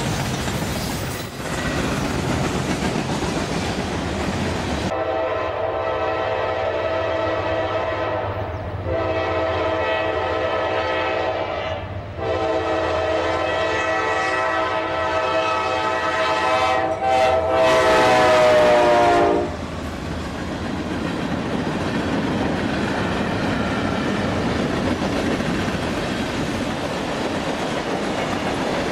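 Freight cars rolling past with steady wheel noise. Then a Norfolk Southern diesel locomotive sounds its multi-note air horn in a series of long blasts, loudest and dropping in pitch at the last as it passes. The clatter of its freight cars rolling by follows.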